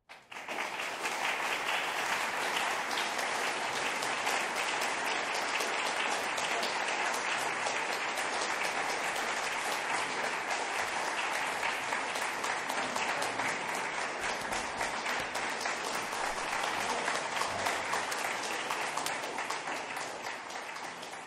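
Audience applauding, breaking out all at once and holding steady, then beginning to die down near the end.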